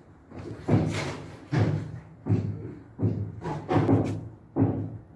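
A series of heavy knocks, about seven in five seconds at an uneven pace, each dying away quickly.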